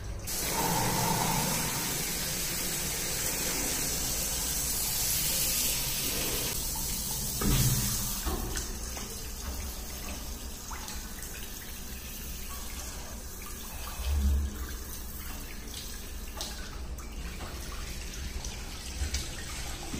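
Shower water spraying from a newly fitted hand shower head on a concealed mixer, running strongly for about the first eight seconds, then dropping to a fainter hiss. Two short knocks sound, one as the flow drops and one some seconds later.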